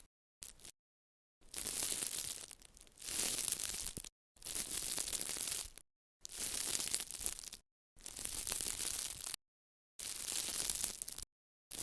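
Crinkly, tearing-like rustling in about six strokes, each lasting one to two seconds, cut off sharply by short silent gaps between them.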